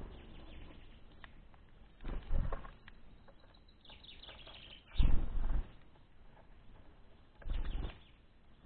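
Small finches flapping their wings in three short bursts, the loudest about five seconds in, with a faint high chirp just before it.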